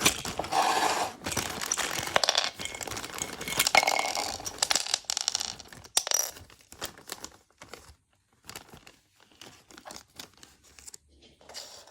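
Thin plastic parts bag crinkling and being torn open. After about five seconds it gives way to scattered light clicks and taps of small plastic toy pieces being handled.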